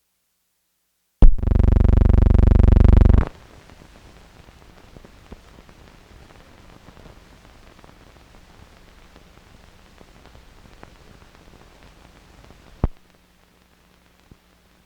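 A loud steady buzz starts about a second in and lasts about two seconds before cutting off, followed by the faint hiss and crackle of an old film soundtrack with scattered clicks. A sharp click comes near the end, then a low steady hum.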